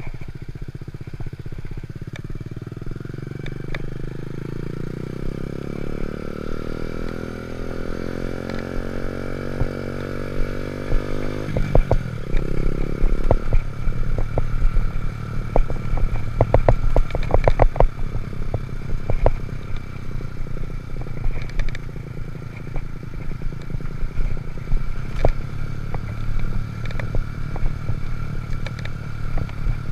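Honda Monkey Z50 minibike's small single-cylinder engine running, its note climbing slowly for about eleven seconds, then falling away sharply. A run of clattering clicks follows, and the engine carries on at a lower, steadier pitch.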